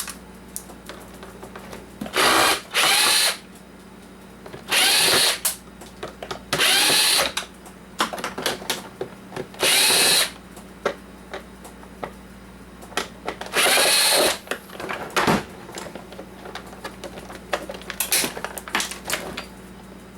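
A power driver backing screws out of a plastic coffee-maker housing in about six short runs, the motor whine rising and falling each time. Small clicks and rattles of handling fill the gaps between runs.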